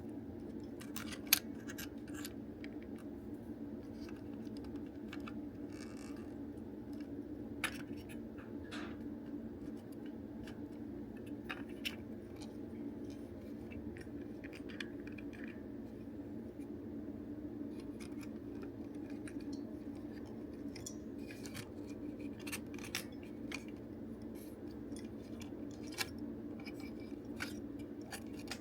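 Scattered small clicks and scrapes of plastic toy parts being handled and taken apart, with one sharp click about a second in, over a steady low hum.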